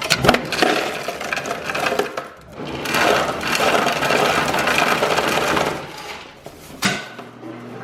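Hotel ice machine dispensing: its motor runs while ice cubes clatter out into a bucket, loudest in the middle of the stretch before it stops.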